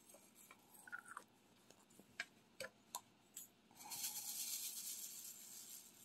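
Light scattered clicks and taps of a diamond painting pen picking up and setting resin drills, then about two seconds of louder rattling hiss near the end, which fits drills being shaken in a plastic tray.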